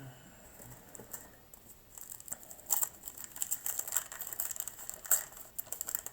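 Cardboard trading cards being handled and flipped through by hand: a quick, busy run of rustles and clicks that starts about two seconds in.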